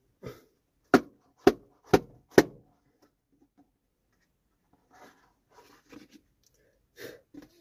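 Cardboard Samsung Galaxy phone box being handled. Four sharp knocks about half a second apart come starting about a second in, then softer rustling and bumps.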